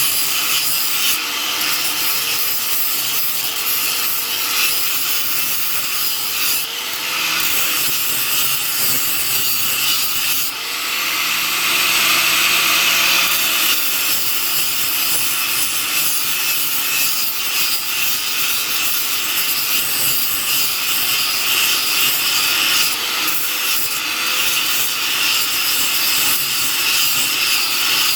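Steady abrasive grinding of steel: a continuous rasping hiss without breaks or separate strokes.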